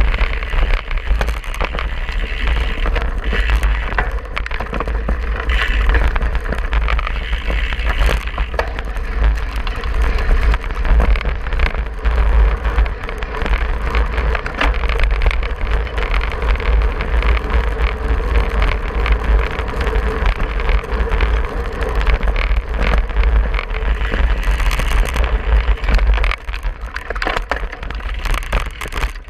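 Cyclocross bike ridden hard over grass and gravel, heard from a handlebar-mounted camera: wind buffeting the microphone, tyre rumble and a constant clatter of the bike jolting over the rough ground.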